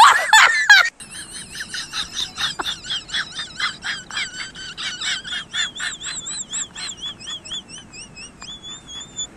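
A loud, wavering wail for about the first second that cuts off abruptly, then a quick, steady series of short, very high-pitched peeps, several a second, some of them rising and falling, from a small young animal.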